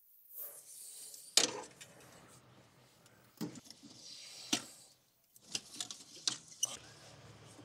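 Hand tools clinking and knocking on metal while a small filter wrench loosens a spin-on main diesel filter. There is one sharp knock about a second and a half in, a couple more around the middle, and a quick run of clicks near the end.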